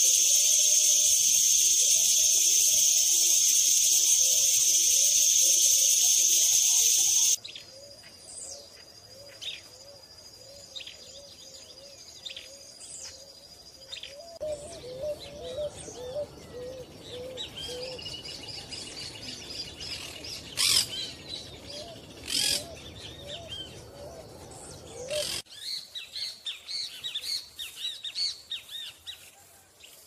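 Birds chirping and calling, the soundscape changing abruptly several times. A loud, steady high insect drone fills the first seven seconds and then cuts off, giving way to quieter chirps and repeated short calls, with a quick run of high notes near the end.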